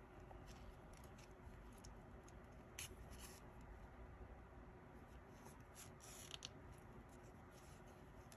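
Near silence with faint rustling of yarn drawn through crocheted stitches by a yarn needle, a few soft swishes about a third of the way in and again past the middle.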